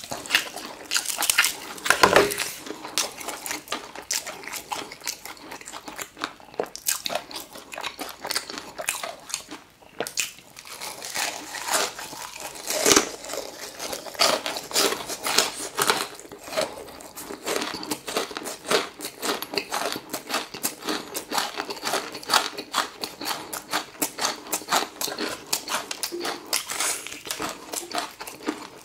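A person biting and chewing crispy fried chicken: crunching with many small crackles as the coating breaks, the loudest bites about two seconds in and again near thirteen seconds.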